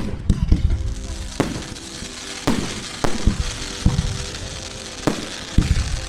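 Fireworks display: about a dozen sharp bangs of bursting shells at irregular intervals, with crackling between them. Music plays underneath.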